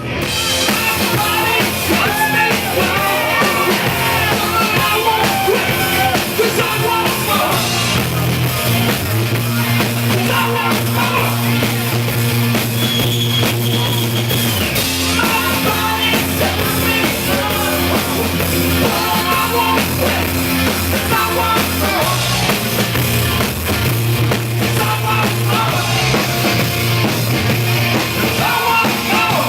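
A rock band playing, with drum kit, held bass notes and singing.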